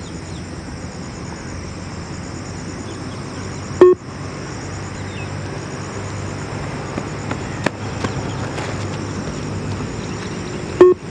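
Yo-Yo intermittent test audio signal beeping twice, seven seconds apart: short electronic tones that time the runners' 20-metre shuttle. Between the beeps there is steady low background noise.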